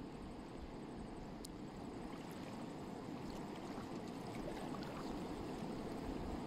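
A shallow, clear river running over a stony bed: a steady rush of flowing water that grows slightly louder.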